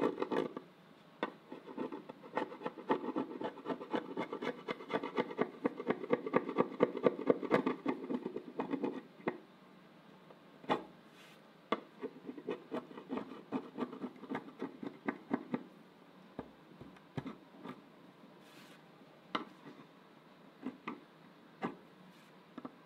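Small hand-held steel scraper blade scraping dried glue squeeze-out off a wooden table leaf along a glued seam. Quick, closely spaced strokes for about the first nine seconds, then slower, scattered single strokes.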